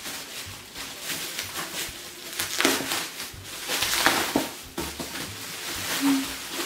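Bubble wrap and plastic packaging rustling and crinkling in irregular handfuls as a box is pulled out of it.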